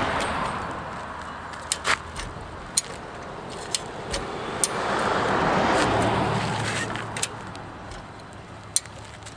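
Sharp metal clicks from a high-lift jack, one at a time at irregular intervals, as its handle is pumped to raise the gate's pull rod. A broad rushing noise swells and fades, peaking about six seconds in with a low hum under it, like a passing vehicle.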